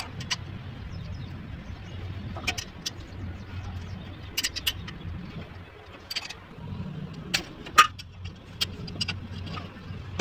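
Car engine idling with a steady low hum and irregular sharp clicks and ticks over it: the bad noise blamed on a faulty V-belt adjuster.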